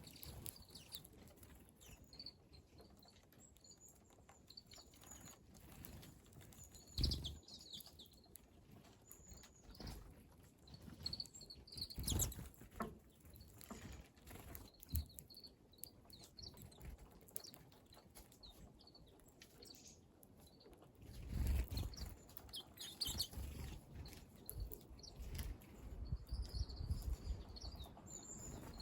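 Small wild birds giving short, high chirping calls again and again, with scattered knocks and flutters among them; a few louder bumps come about a quarter of the way in, near the middle and past two-thirds.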